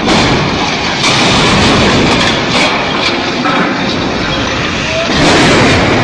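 A truck crane toppling over with a bulldozer slung from it: a loud, continuous rumbling clatter of heavy metal, broken by several sharp bangs, and loudest near the end.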